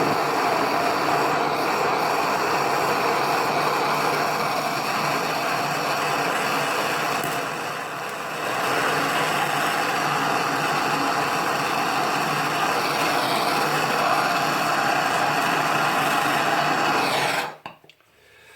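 A small power tool running steadily at a constant speed, then stopping abruptly near the end.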